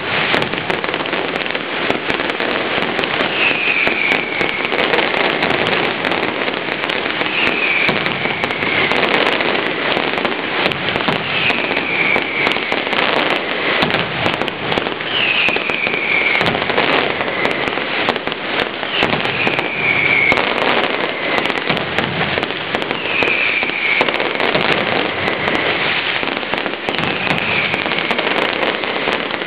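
Mascletà firecrackers going off in a loud, dense, unbroken crackle of rapid cracks. A short falling whistle cuts through about every four seconds.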